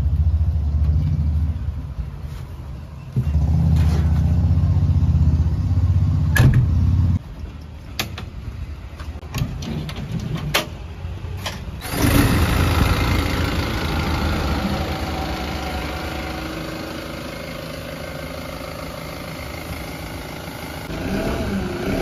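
Backhoe loader's diesel engine cranked by the starter in two bursts that cut off without it catching, a few sharp clicks, then the engine firing up about halfway through and settling into a steady idle that slowly quietens.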